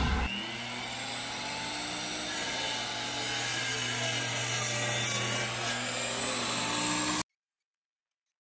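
DeWalt compound miter saw running and cutting through lumber, a steady motor hum under the rasp of the blade, cutting off suddenly about seven seconds in.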